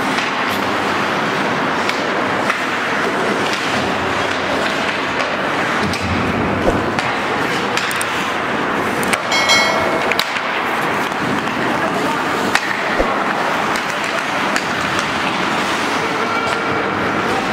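Ice hockey play in an indoor rink: a steady scraping of skates on the ice, with scattered sharp knocks of sticks and puck.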